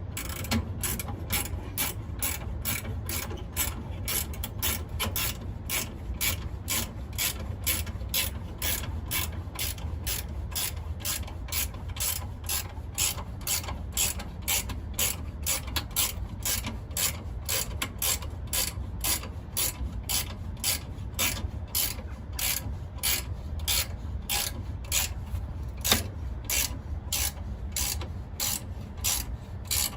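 Ratchet wrench clicking steadily, about three clicks a second, as it tightens the mounting-bracket bolts on a condenser fan motor, over a steady low rumble.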